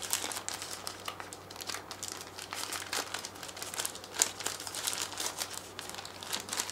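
Thin plastic bag crinkling in irregular small crackles as fingers handle it and work at its opening.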